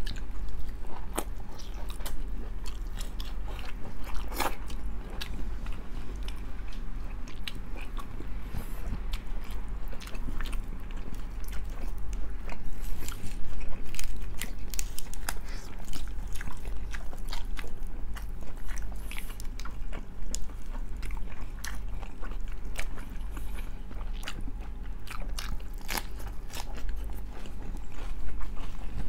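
Close-up chewing and biting of food, with frequent short crunchy clicks, over a steady low hum.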